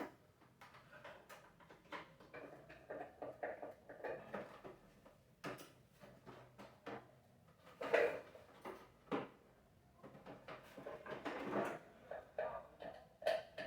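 Hands handling the hard plastic parts of a vacuum cleaner that is being taken apart: irregular clicks, knocks and scrapes, with a sharper knock about two-thirds of the way through.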